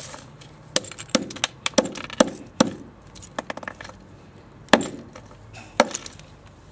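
Sharp plastic cracks and knocks, about ten at irregular intervals with a quick run of small ticks midway, as a sound-effect pen's casing and parts are broken apart.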